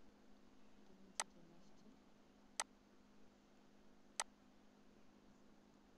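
Three sharp computer mouse clicks, about a second and a half apart, over a faint steady low hum.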